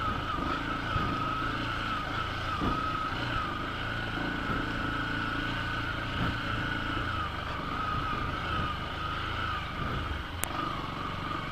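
Motorcycle engine running steadily at low speed, under a continuous, slightly wavering high whine. A single sharp click comes near the end.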